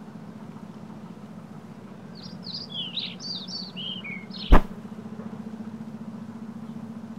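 Birds chirping in a quick run of short, falling calls, then a single loud slam as the lid of a plastic wheeled trash bin drops shut, over a steady low hum.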